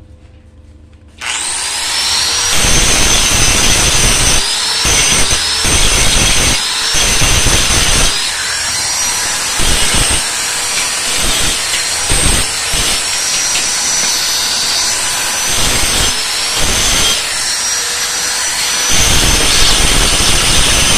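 Electric angle grinder switched on about a second in, then grinding steel with its disc. Its high whine sags under load and climbs back again and again as the disc is pressed against the metal and eased off.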